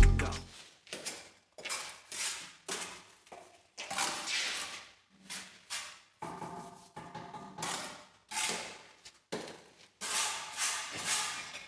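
Irregular short knocks and scrapes of tools and materials being handled in a brickwork workshop, a dozen or so, each under a second, some with a faint ring.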